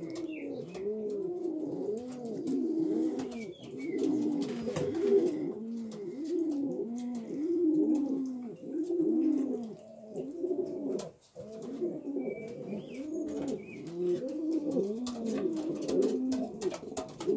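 Several racing pigeons cooing, their low coos, each rising then falling, overlapping one another almost without a break, with scattered light clicks among them.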